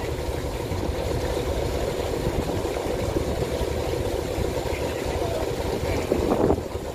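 Boat engine running steadily as a small harbour boat passes close by, a fast, even chugging, with a brief louder surge near the end.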